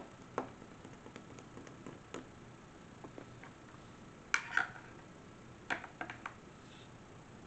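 A few light clicks and taps from pens being picked up and handled. The loudest is a quick double click about halfway through, followed a second later by a short cluster of clicks.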